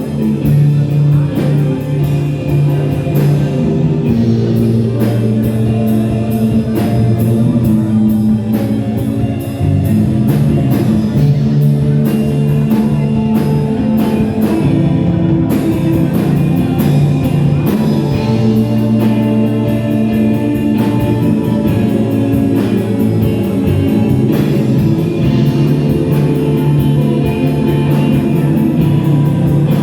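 Rock band playing live: guitar and bass over a drum kit keeping a steady beat.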